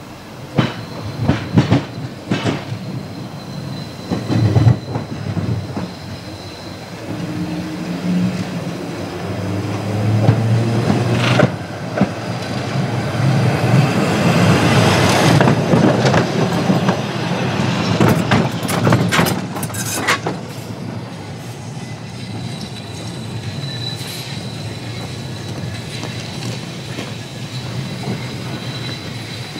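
Leeds double-deck electric tram no. 180 running over pointwork and past, its wheels clacking over the points and rail joints, with wheel squeal and running noise loudest about halfway through as it rounds the curve, then going away.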